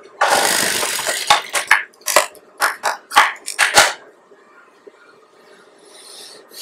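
Blouse fabric rustling and swishing as it is handled and moved across the sewing table: a rustle of about a second, then about nine short, sharp swishes over the next three seconds.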